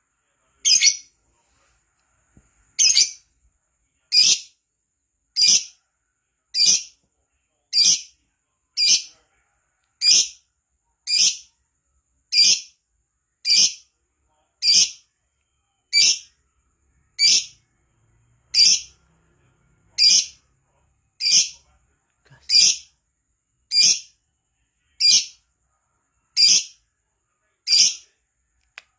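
Lovebird giving short, sharp, high-pitched calls, one every second or so in a very even rhythm.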